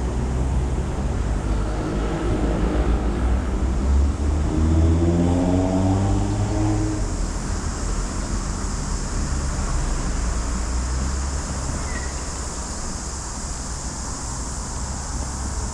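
A motor vehicle driving by, its engine note rising in pitch for a few seconds before fading, over a steady low rumble of traffic.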